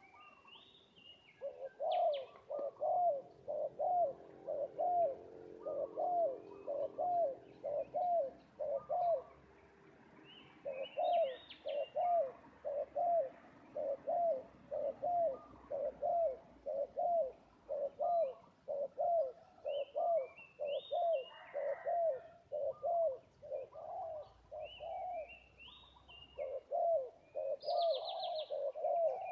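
Spotted dove giving long runs of short coos, about two a second, pausing briefly about a third of the way through before carrying on. Small birds chirp at a higher pitch over it.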